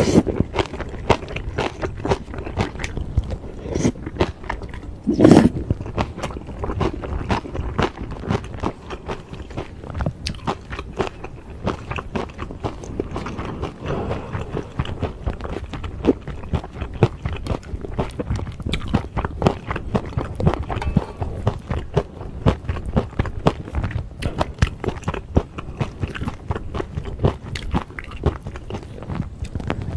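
Close-miked chewing and wet mouth sounds of a person eating beef bulgogi with glass noodles and bean sprouts, dense small clicks and smacks with some crunching. A louder mouth sound about five seconds in stands out.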